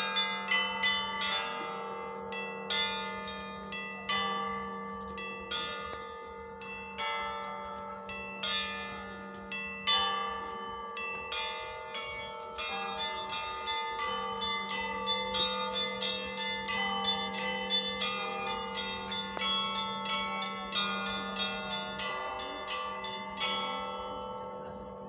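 Russian church bells ringing a full peal: smaller bells struck in quick rhythmic patterns, a few strikes a second, over the steady hum of a larger bell. Near the end the strikes stop and the bells ring out.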